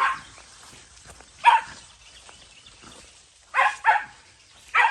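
A dog barking: about five short barks spread across a few seconds, two of them in quick succession.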